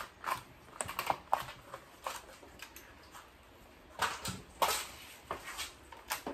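Stiff plastic seedling cell trays clicking and knocking as a stacked tray is pressed down to pack soil into the cells of the one below and then handled and lifted off. Short sharp clicks come in a quick run, pause for a second or two, then resume.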